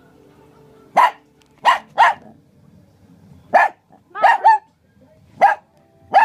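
Shih Tzu giving short, sharp, high-pitched play barks, about eight in all, several in quick pairs, while playing wildly with another dog.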